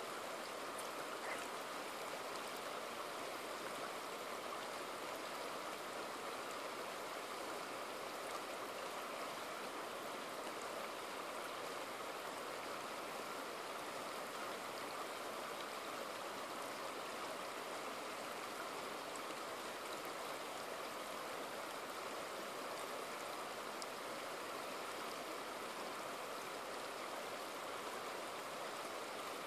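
Shallow, boulder-strewn river flowing steadily over and around rocks, an even, continuous sound of running water.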